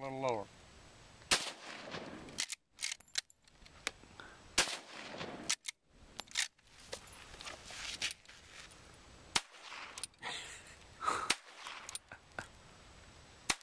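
Gunshots from a Winchester Model 94 lever-action rifle in .30-30: about half a dozen loud shots a few seconds apart, with smaller clicks and clacks between them. A short falling whine sounds right at the start.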